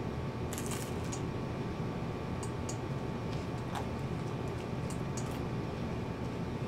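A person chewing pizza with a closed mouth, giving a few scattered wet mouth clicks and smacks over a steady low hum.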